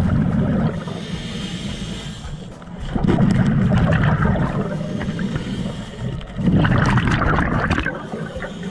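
Scuba regulator exhaust bubbles rumbling and gurgling past the diver's head in three exhalation bursts, each about a second long and roughly three seconds apart. Between them is a quieter hiss of breathing in through the regulator.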